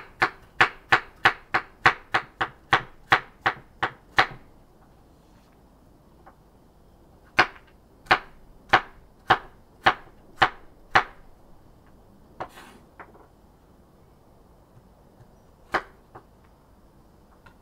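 Freshly sharpened kitchen knife chopping baby carrots on a wooden cutting board: a quick run of about fourteen crisp knife strikes on the board, about three a second, then a pause. A slower run of about seven strikes follows, then a few scattered lighter taps near the end.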